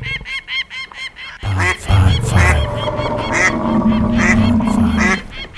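Geese honking. It starts as a quick run of short repeated calls, then turns into louder, overlapping honks about a second and a half in.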